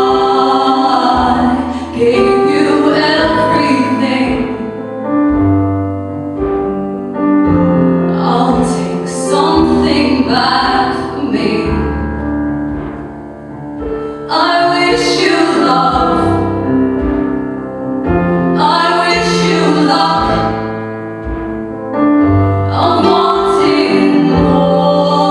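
Live folk song: women's voices singing phrases in harmony over sustained instrumental accompaniment with changing bass notes.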